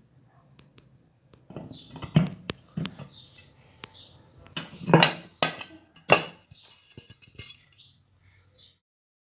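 Metal ceiling-fan parts and tools being handled: a run of sharp clinks and knocks, a few louder ones about two, five and six seconds in, with lighter clicks between. The sound cuts off suddenly near the end.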